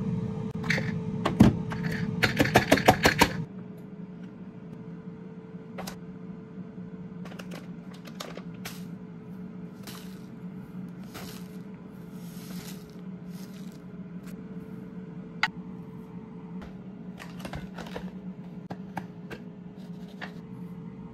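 Kitchen handling sounds. A plastic mini chopper's bowl and blade are knocked and clicked about in the first few seconds, with one sharp knock early on and then a quick run of clicks. After that come scattered light clinks and scrapes of a spoon, a crumb bag and containers, over a steady low hum.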